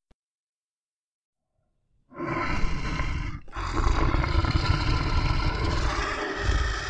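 About two seconds of silence, then a bear growls: a rough, deep growl with a short break after its first second or so.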